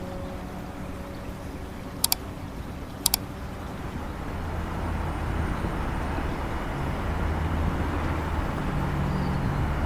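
Steady rumble of road traffic that grows louder over the second half, with low hums like a vehicle drawing near. Two sharp double clicks sound a second apart early on.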